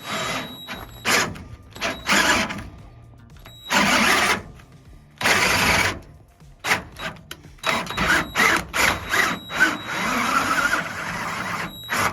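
Power drill driving a 5/8-11 thread tap in repeated short bursts, chasing threads clogged with years of corrosion and paint; the run near the end is the longest.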